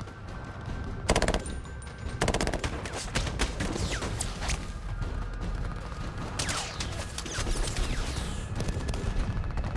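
Sustained automatic gunfire from several weapons in a film firefight, rapid shots overlapping, with loud bursts about one and two seconds in.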